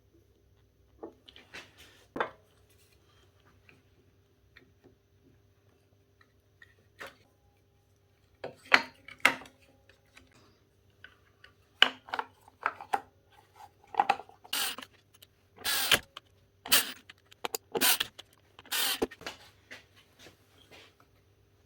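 Clicks, clinks and knocks of metal tools and saw parts being handled during a repair, sparse at first and coming quicker and louder in the second half.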